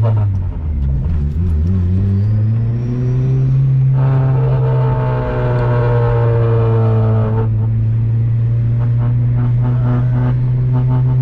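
K24-swapped Honda Civic engine heard from inside the cabin on a drive, pulling harder from about four seconds in and easing off a few seconds later. Near the end a rapid rattle sounds over the engine.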